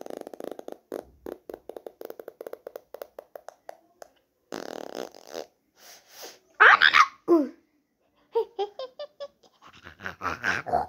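Cartoon sound effects: a long rapid sputtering run of short pulses, a loud falling glide in pitch about seven seconds in, then more short sputters.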